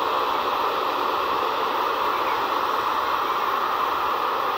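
Steady, even rushing noise of an Airbus A380's jet engines, with no distinct tones and no change in level.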